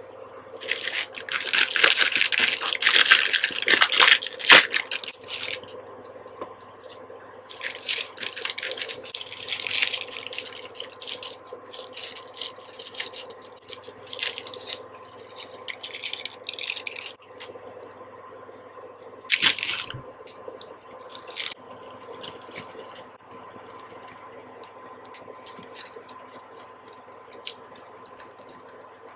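Plastic instant-noodle packets crinkling and being torn open, loudest for the first few seconds and again from about seven to twelve seconds in, with a sharp crackle about nineteen seconds in. Wet splashes and drips as the noodle blocks go into the pan of water and seasoning sachets are shaken out. A faint steady hum runs underneath.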